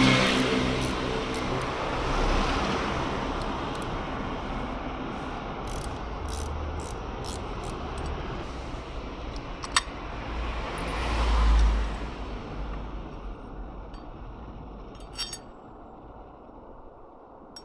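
Road traffic passing, several vehicles swelling up and fading away one after another, with a few sharp clicks and light metallic clinks as it quietens near the end.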